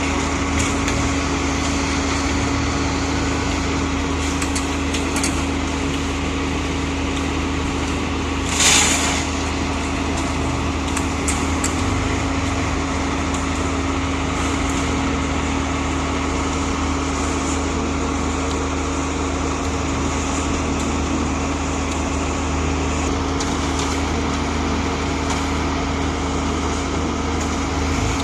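Diesel engine of a truck-mounted concrete mixer pump running steadily with a constant hum, and a short hiss about nine seconds in.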